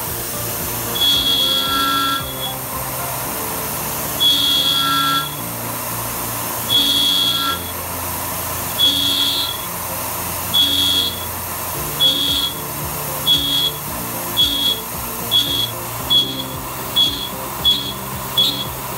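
Tormach PCNC 770 CNC mill cutting aluminium with a quarter-inch three-flute end mill on an adaptive-clearing toolpath. A steady machine hum is broken by short high-pitched whines each time the cutter swings into the cut. The whines grow shorter and come faster, from about one every two to three seconds at first to more than one a second near the end.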